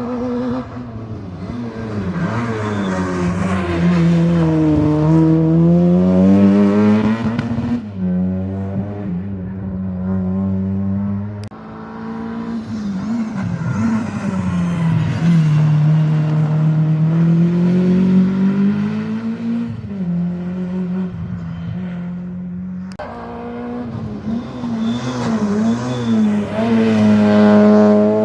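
Rally cars' engines at full stage pace, the engine note repeatedly dropping and climbing in pitch as the cars brake and accelerate through corners. Some stretches hold a steady note for a few seconds, and the sound changes abruptly several times between cars.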